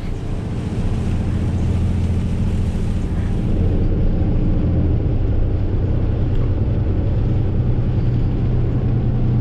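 Tow truck's engine droning steadily, heard inside the cab while driving, with road noise from the tyres on a wet road.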